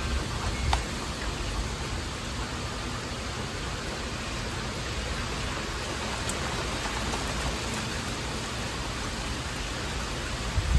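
Heavy thunderstorm rain falling steadily, an even hiss of drops. A brief low thump near the end.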